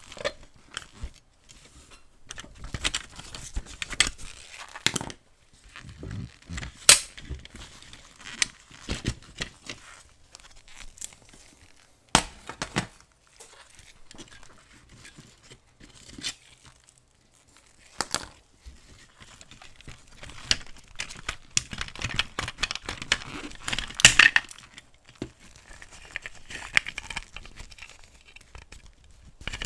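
Rusty diecast Ferrari F50 model car being taken apart by hand: scattered sharp clicks, knocks and rattles of its metal and plastic parts, with scratchy rubbing as pieces are pried loose. A denser run of scraping and clicking comes about three quarters of the way through.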